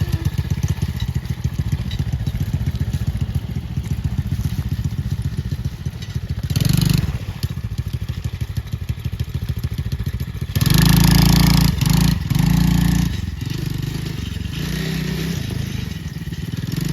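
Four-wheeler's small engine running with a steady, rapid low pulse, with two louder, noisier surges, one about seven seconds in and a longer one from about eleven to thirteen seconds.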